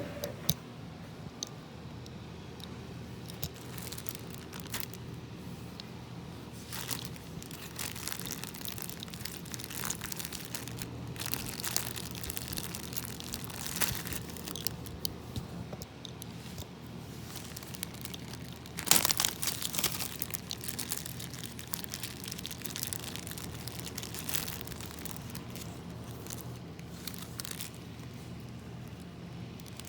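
Slime being squeezed and stretched by hand, a run of irregular crinkling, crackling pops, with a louder flurry of crackles a little past the middle.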